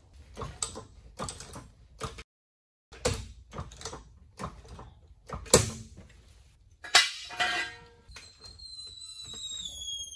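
Sharp metal clanks and knocks from taking out an axle stand and working a hydraulic trolley jack. Near the end a high squeal falls in pitch over about two seconds as the jack lets the car down.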